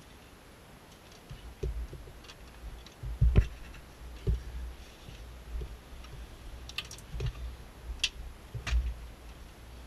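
Irregular clicks, taps and dull knocks as a hand presses a dashcam power cable into the edge of a van's plastic roof trim. The loudest knock comes about three seconds in, with a few sharp clicks near the end.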